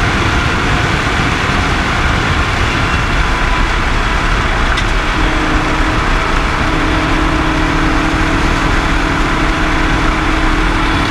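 Rally car at speed, heard from inside its caged cabin: the engine runs steadily over loud tyre and road noise. About five seconds in, the engine settles onto a steady, unchanging note.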